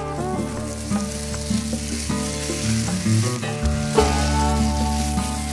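Background music with held, sliding notes over a steady bass line, mixed with a continuous crackling hiss.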